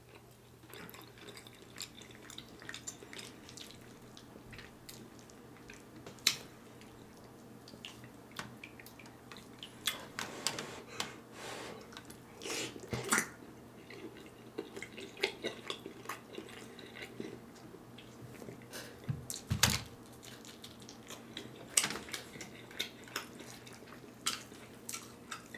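Eating sounds: chewing smoked turkey leg, with scattered wet mouth smacks and clicks.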